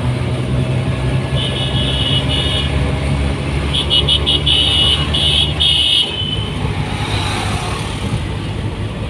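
Auto-rickshaw engine running steadily with road noise from inside the open cabin, while vehicle horns honk in short repeated beeps about a second in and again from about four to six seconds. The low engine drone drops away about six seconds in.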